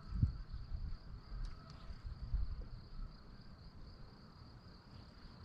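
Faint, steady, high-pitched insect trilling, with uneven low wind rumble on the microphone.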